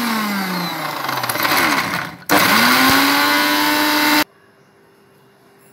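Electric mixer grinder dry-grinding fried mint leaves and whole spices. Its motor whine falls away as it is switched off, starts again about two seconds in, climbs back to speed, and cuts off abruptly about four seconds in.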